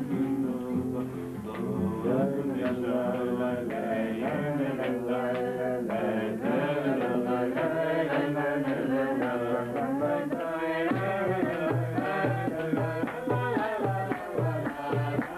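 Music: a sung melody throughout, joined about eleven seconds in by a steady low beat of about three a second.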